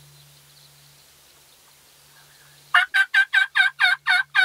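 Wild turkey gobbler gobbling: after a quiet stretch, a loud, rapid rattle of repeated notes breaks out about two-thirds of the way in.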